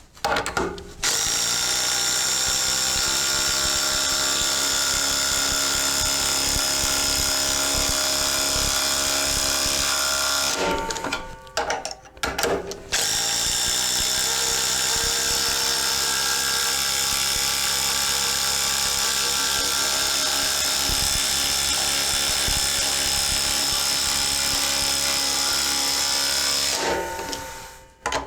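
Ryobi ONE+ HP brushless impact driver hammering with a steady rattling run of about ten seconds. It stops, gives a couple of short bursts, then hammers again for about fourteen seconds and winds down near the end.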